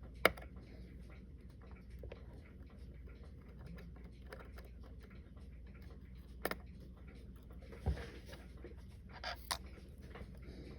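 Small tools and parts of a Citizen Leopard Diver watch clicking and tapping on a workbench during disassembly: a sharp click just after the start, a double click past the middle, a dull thump, then two more clicks near the end, with faint scratching and handling between.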